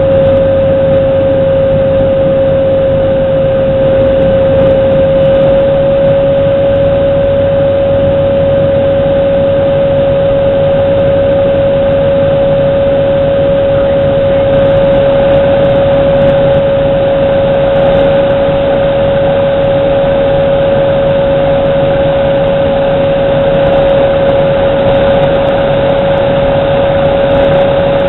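Engine and propeller of a single-engine bush plane heard from inside the cabin: a loud, steady noise with a clear high hum held throughout.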